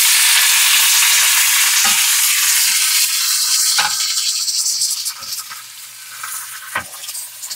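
Chopped onions dropped into hot oil in a stainless steel pan, sizzling loudly at once; the sizzle eases after about four seconds while a wooden spoon stirs them, knocking against the pan several times.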